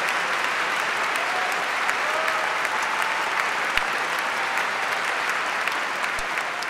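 Audience applauding steadily after a concert band piece, a dense wash of many hands clapping with individual claps standing out.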